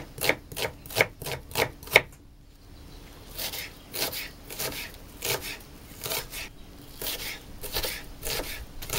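Kitchen knife dicing onion on a wooden cutting board: sharp knocks of the blade on the board about three a second, a short pause about two seconds in, then softer, slower cuts about twice a second.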